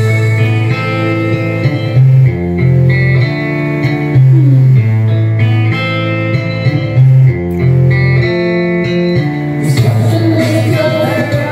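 Karaoke backing track playing, a guitar-led instrumental with a bass line. About ten seconds in, a woman starts singing into the karaoke microphone.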